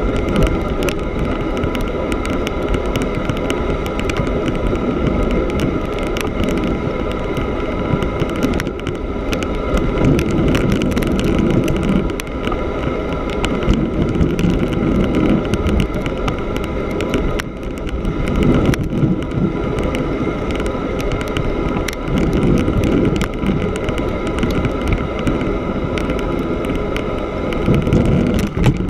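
A bicycle's knobby tyre rolling over snow-covered lake ice, mixed with wind buffeting the bike-mounted camera's microphone. A steady faint hum sits on top.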